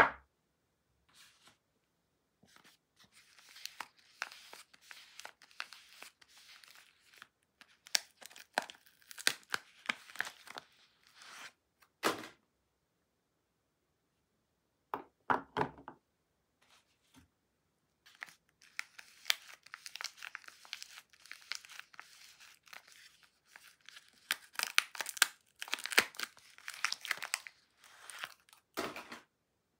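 Soap bar wrappers being crinkled and torn open by hand, in two long stretches of crackling, with a few sharp knocks in between.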